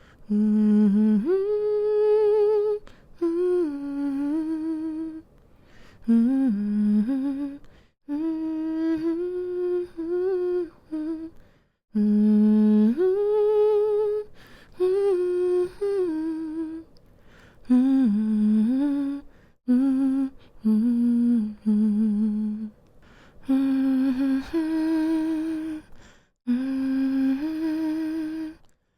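A woman humming a slow, soothing lullaby tune to lull a baby to sleep, in phrases of a few seconds with short pauses for breath, gliding between low and higher notes.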